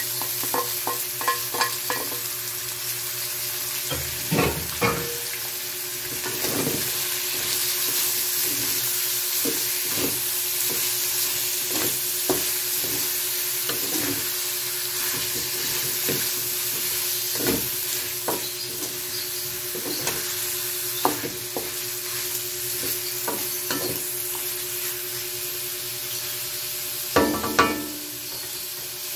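Shredded boiled chicken sizzling with onions and garlic in hot oil in a metal wok. A wooden spatula stirs it, scraping and knocking against the pan, with louder knocks about four seconds in and near the end.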